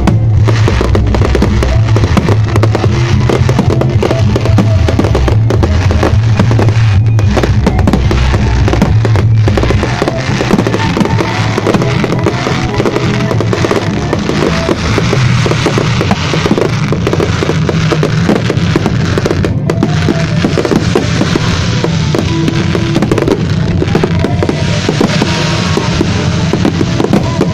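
Aerial fireworks display: a dense run of bangs and crackling from bursting shells, over loud music played along with the show.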